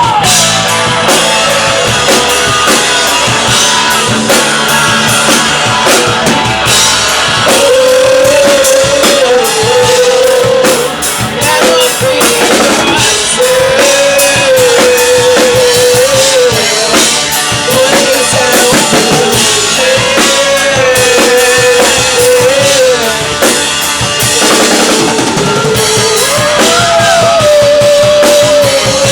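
Live rock band playing an instrumental stretch: drum kit keeping a steady beat under guitars, with a held, wavering melody line carried over it for most of the passage.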